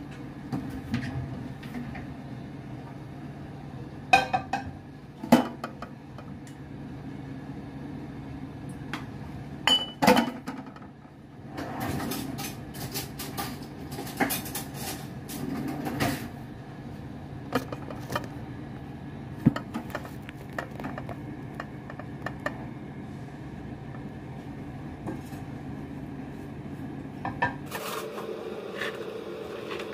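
Dishes and utensils clinking and knocking now and then over a steady low hum, with a busier run of clatter from about twelve to sixteen seconds in. The hum changes pitch shortly before the end.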